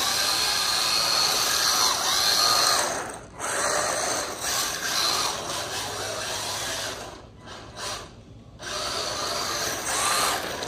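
Electric motor and gears of an SG1603 mini RC drift truck whining as it is driven, the pitch rising and falling with the throttle. It cuts out briefly about three seconds in and again for a second or so near the eight-second mark.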